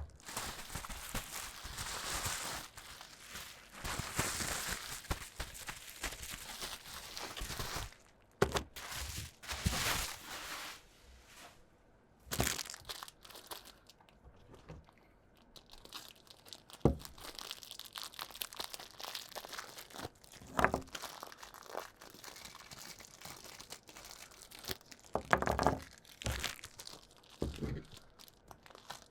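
Packaging being handled and unwrapped: crinkling, rustling and tearing, broken by scattered sharp knocks and taps.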